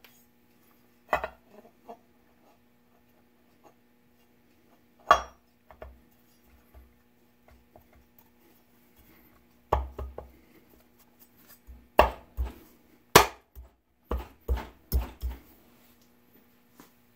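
Sharp metallic clinks and knocks of parts and hand tools being handled while the front cover is fitted onto a 6-71 Roots blower. The knocks are sparse at first and grow more frequent, ending in a quick run of five or six taps near the end.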